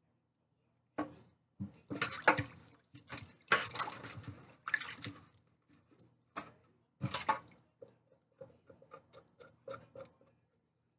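Water splashing in a sink as a raw whole chicken is rinsed and handled, in uneven bursts for several seconds, followed by two short splashes and then a run of small wet taps and drips.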